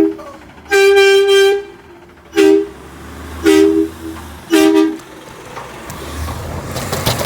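Garbage truck horn sounding four loud blasts, a long one followed by three short ones about a second apart, with two close tones. A rising noise builds up near the end.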